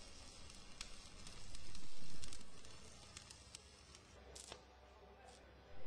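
Faint crackling with scattered clicks, and a low rumble that swells and fades about two seconds in.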